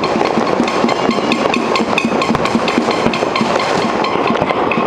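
Many fireworks and firecrackers going off at once: a dense, unbroken crackle of sharp pops, several a second, with no let-up.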